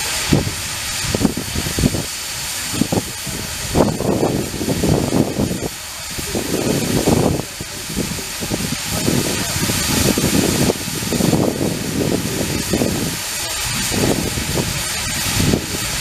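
Steam traction engine working a plough, a steady hiss with irregular low rumbling surges.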